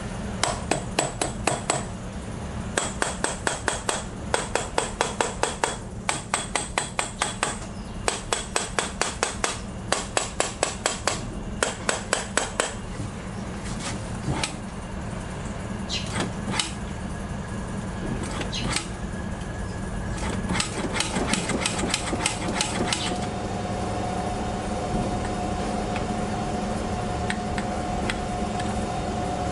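Rapid light hammer taps on the carburetors of a Datsun 240Z's L-series straight-six, in bursts of about six to seven a second, jarring the carburetors with vibration, with the engine idling underneath. A few single taps fall between the bursts.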